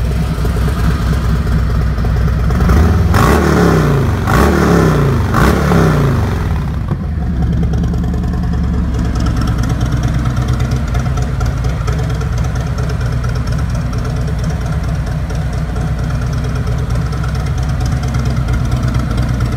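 2017 Harley-Davidson Street Glide's Milwaukee-Eight V-twin running through stock headers and Tab Performance aftermarket slip-on mufflers: idling, blipped three times between about three and six seconds in, each rev rising and dropping back, then settling to a steady idle.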